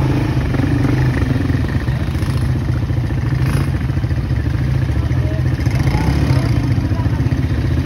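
ATV engines running steadily at low speed, a fast, even engine pulse as the quad bikes move slowly along a dirt trail.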